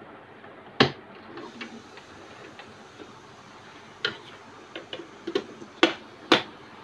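Sharp plastic clicks and knocks from parts of an Usha Stitch Queen sewing machine being handled: one click about a second in, then a run of clicks from about four seconds in, the loudest two near the end as the accessory box of the free arm is pushed back into place.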